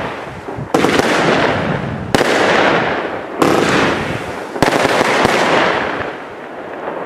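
Steffes-Ollig 36-01 firework battery (36 shots, 25 mm calibre) firing its shots: five sharp bangs about a second apart, each followed by a fading hiss. The last shot comes a little past halfway through, and the hiss then dies away.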